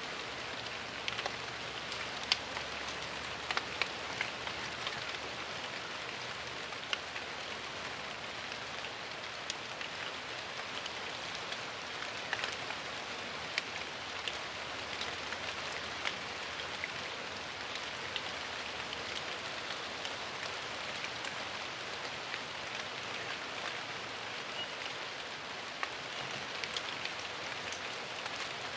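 Steady rain falling, with frequent sharp clicks of single drops landing among the even hiss.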